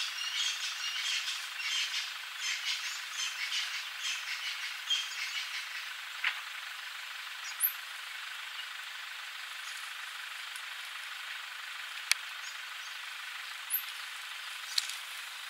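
Birds chirping in the bush, a busy patter of short high notes that thins out after about six seconds, leaving a steady outdoor hiss. A few sharp clicks stand out, the loudest about twelve seconds in.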